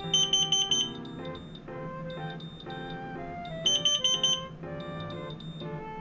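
Carbon monoxide alarm's high-pitched electronic beeper sounding two short bursts of rapid beeps about three and a half seconds apart, a false alarm set off by ethyl alcohol vapour. Background music plays throughout.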